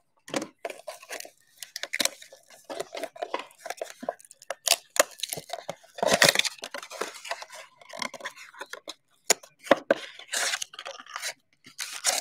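Plastic shrink-wrap and pack wrappers on a blaster box of basketball trading cards being torn open by hand: a run of irregular crinkling and tearing.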